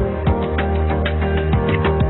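Background music with a steady beat: sustained chords over a bass line, with plucked-string tones.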